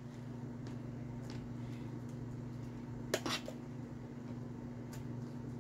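A spoon scooping sauce and tapping against plastic containers, with a sharper double tap about three seconds in, over a steady low hum.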